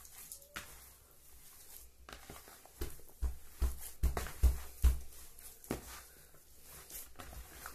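Hands kneading and squeezing a crumbly, oily fish-bait mixture in a plastic bowl, with soft rustling throughout. Around the middle comes a run of about six dull thumps as the mass is pressed together into a ball against the bowl.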